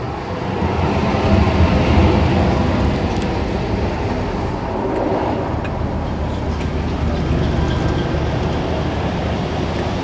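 Diesel locomotive engine running, swelling louder about a second in and then settling into a steady low note.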